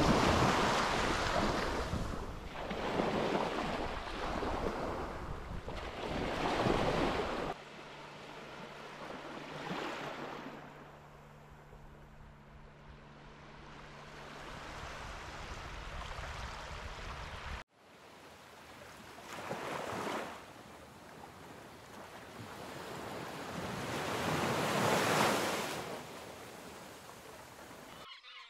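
Small waves breaking and washing up a sandy beach, the wash swelling and falling back every couple of seconds, with wind buffeting the microphone in the first stretch. In the quieter middle stretch the wash is softer and a faint steady hum sits beneath it.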